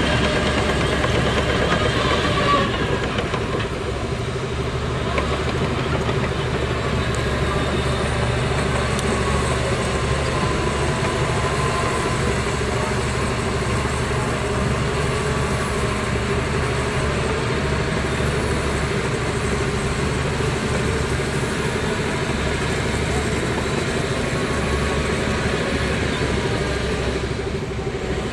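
Bulldozer's diesel engine running steadily, with a slight dip in level about three seconds in.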